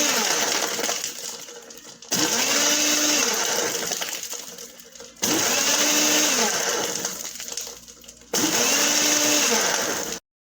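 Blender motor of a Mr. Coffee 3-in-1 frappe coffee maker pulsed in short runs, about three seconds apart. Each run starts suddenly with a whine that rises and then falls in pitch as it dies away. The last run cuts off just before the end.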